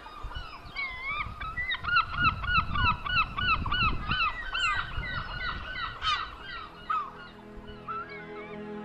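A flock of geese honking, many rapid overlapping calls that thin out and stop about seven seconds in. Wind rumbles on the microphone partway through, and soft music comes in near the end.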